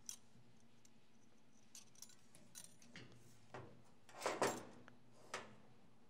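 Small metal typewriter parts clicking and clinking as they are handled, a few scattered light knocks, with a louder short clatter a little after four seconds in.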